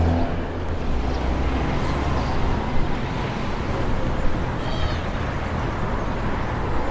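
Town street ambience: a steady wash of distant traffic and activity with a low rumble that eases after about half a second. One short high-pitched call stands out about five seconds in.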